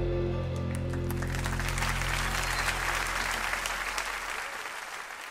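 Audience applause swells up over the song's last held chord as it dies away. The clapping is loudest about three seconds in, then thins out.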